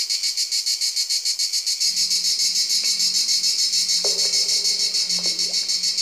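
Cricket chirping: a steady, rapid pulsing trill at about seven pulses a second. A low hum comes in about two seconds in, and a few short falling squeaks sound over it.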